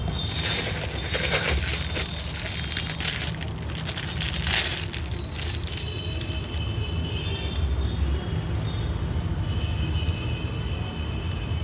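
Packaging crinkling and crackling as it is handled and opened, mostly in the first five seconds, over a steady low rumble.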